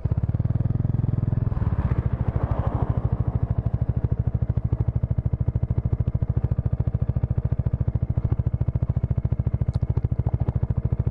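Bajaj Dominar 400's single-cylinder engine running at low revs, its exhaust pulsing in a steady, even beat as the bike rolls slowly onto a gravel track.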